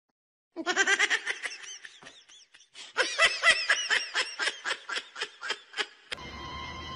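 High-pitched laughter in quick, repeated ha-ha pulses, about four a second. It starts about half a second in, thins out briefly in the middle and stops about six seconds in.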